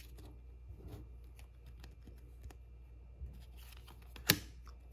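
Faint rustles and light ticks of trading cards being handled and slid one behind another, with one sharper snap of a card about four seconds in.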